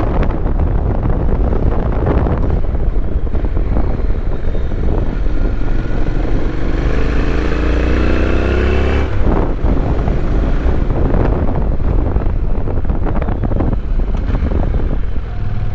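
Honda NC750X motorcycle's parallel-twin engine running on the move, under heavy wind noise on the microphone. About midway the engine climbs in revs for a few seconds, then drops back suddenly, as in a gear change or easing off the throttle.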